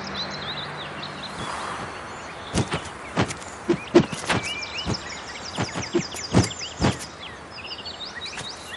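Small birds chirping over outdoor ambience, with a run of about ten sharp, irregular thuds between about two and a half and seven seconds in. The tail of a music score fades out in the first second and a half.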